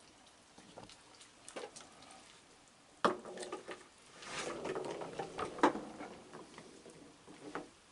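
Raccoons feeding from plastic buckets: their paws and snouts scrape and clatter against the plastic, with a sharp knock about three seconds in and a busier run of clicks and scraping a second later.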